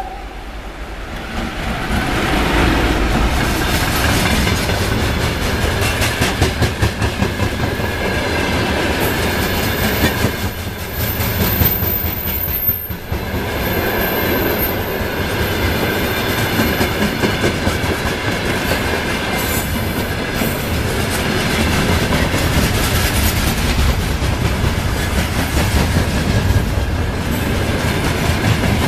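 Soviet VL10 DC electric locomotive passing at the head of a freight train, then a long string of open gondola wagons rolling by, their wheels clacking over the rail joints.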